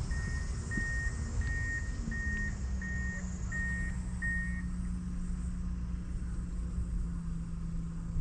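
Seven short, evenly spaced electronic beeps, about one and a half a second, at one steady pitch, stopping about halfway through. A vehicle engine hums steadily underneath from about two seconds in.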